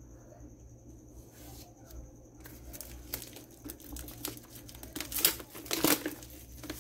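Clear plastic shrink wrap being torn and peeled off an earbuds box, crinkling. The crackling starts about two and a half seconds in and is loudest near the end.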